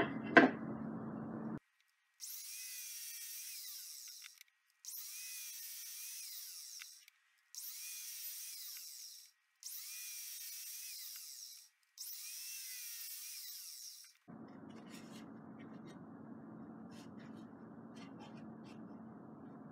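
Twelve-inch miter saw making five quick cuts through wooden table legs at a 20-degree angle, each cut about two seconds long with short pauses between. The cuts sound high-pitched and thin, with no low end.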